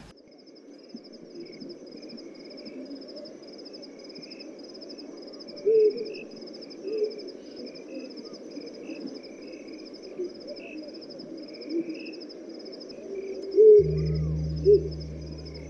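Night bush sounds: an owl hooting a few short notes over a steady, fast insect trill and scattered chirps. Near the end a steady low hum comes in.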